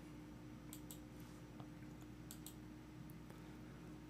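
A few faint computer mouse clicks, some in quick pairs, over a low steady hum of room tone.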